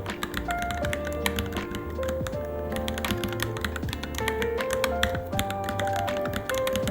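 Continuous fast typing on a Varmilo Minilo mechanical keyboard: a dense run of key clacks. Background music with a steady bass line plays at about the same level.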